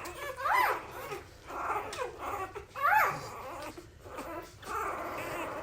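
Rottweiler whimpering: a few high cries that rise and fall in pitch, the clearest about half a second in and again around three seconds.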